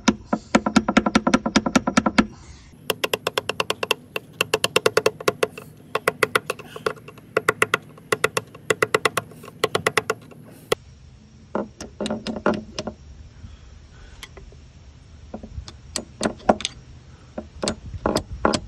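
Hammer blows on a screwdriver, driving a quarter in under the flange of an Airmar B60 transducer bedded in 5200 sealant to break the bond. The blows come in fast runs of about five a second, each with a short metallic ring, then turn slower and scattered after about 11 seconds.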